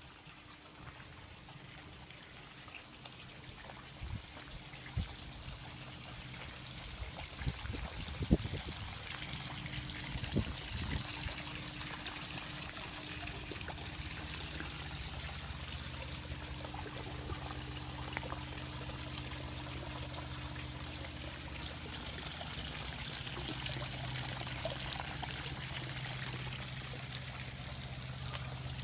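Water trickling and splashing steadily from a garden water feature, growing louder over the first dozen seconds. A few brief low thumps sound in the first half.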